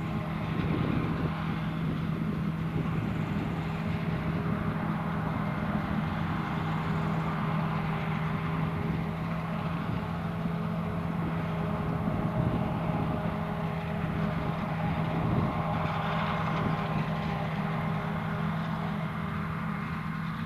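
Large diesel farm machinery running steadily under load, a constant engine drone with a hum of machinery mixed in.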